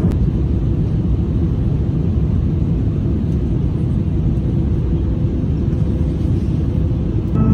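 Steady low cabin roar inside an Airbus A350-1000 airliner in flight: airflow and engine noise heard from a window seat in economy, even and unchanging.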